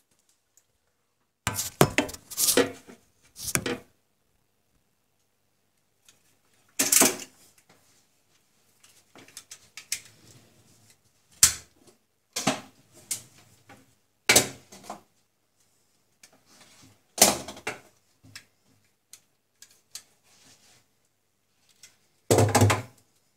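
Hands handling cable and small parts under a cabinet: a string of short clattering and knocking bursts with faint rustling between them, one every few seconds. The louder clusters come early on and again near the end.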